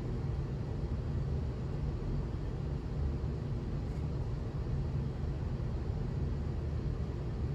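Industrial ceiling fan coasting in its spin down after being switched off: a steady low rumble of motor and moving air.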